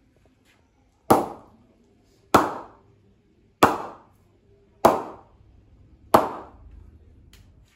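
A leather cricket ball bounced repeatedly off the face of an SS VA 900 Instinct English willow bat: five sharp knocks, about one every 1.2 seconds, each ringing briefly. This is a ping test of the bat's rebound, judged perfect.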